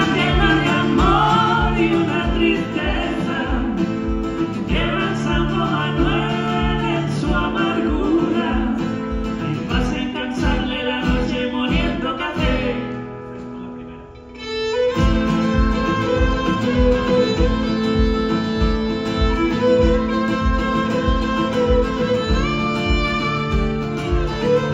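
Live acoustic duo: acoustic guitar strumming a steady beat under a violin, with a voice singing in the first half. The music drops away briefly just past halfway, then comes back in with the violin playing held notes over the guitar.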